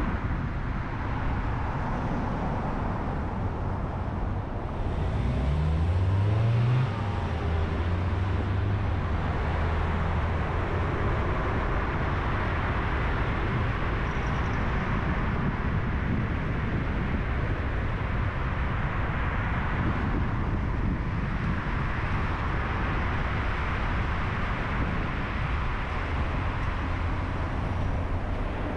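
Car driving on city roads: steady road and tyre noise, with an engine note rising twice about five to seven seconds in as a vehicle accelerates, then holding a steady low hum for several seconds.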